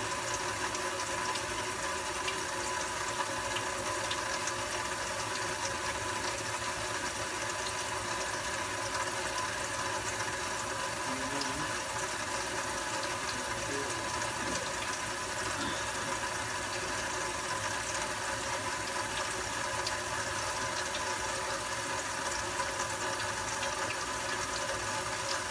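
Hot water running steadily from a kitchen sink faucet, a constant rushing hiss.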